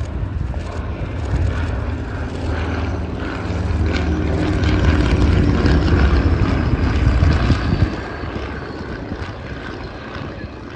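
Piston-engined propeller aircraft making a display pass. The engine drone builds to its loudest about halfway through, then falls away sharply about eight seconds in.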